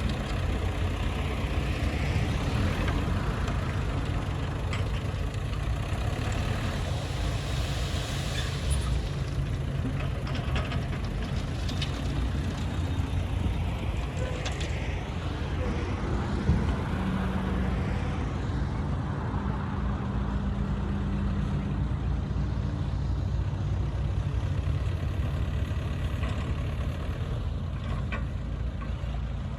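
Bulldozer's diesel engine running steadily while the machine works, a heavy low rumble with a few faint clicks.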